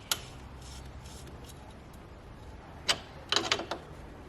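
A few sharp clicks and taps of small parts being handled as the boost line's fitting is screwed onto the intercooler piping: one click just after the start, another near three seconds in, then a quick cluster of clicks. A low steady hum sits underneath.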